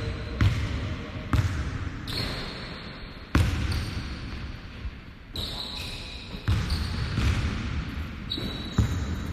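A basketball bouncing on a hardwood court, about seven thuds at uneven intervals, with faint voices in the background.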